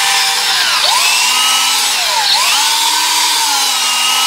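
Electric drill with a small bit boring into solid bronze, its motor running continuously. The whine's pitch dips and recovers twice as the bit bogs down in the hard metal.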